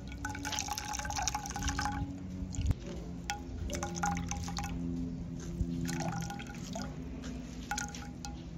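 Fresh coconut milk trickling and dripping from a handful of squeezed grated coconut into a plate of milk, splashing in several spells.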